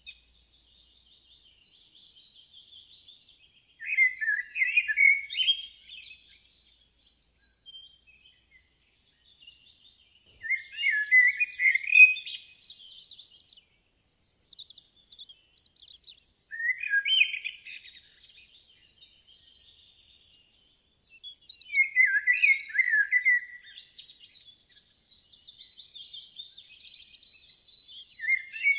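Songbirds singing: loud, varied two-second phrases of chirps about every five to six seconds, with fainter, higher twittering in between.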